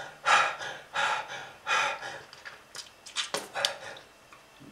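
A person's harsh, labored breathing: a run of short, noisy gasps, roughly one every second or less, dying away near the end.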